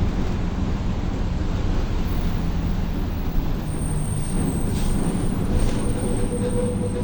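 Volkswagen 17-230 OD bus running on the road, a steady low drivetrain rumble with the differential whining loudly; a steady whine comes in about five and a half seconds in and holds.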